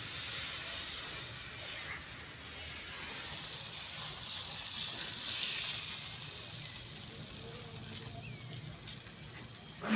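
Rice-flour dosa batter sizzling on a hot iron tawa as it is poured and spread with the bottom of a metal bowl. The hiss starts suddenly and eases off over the last few seconds.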